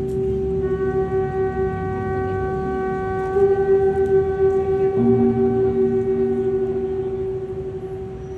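Conch shell trumpet blown in a long held note, with a lower second tone sounding at the start and again about halfway through; the note fades away near the end.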